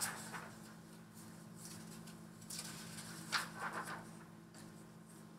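Sheets of paper being handled and shuffled: a sharp rustle at the start, then a few softer rustles about two and a half to four seconds in, over a faint steady hum.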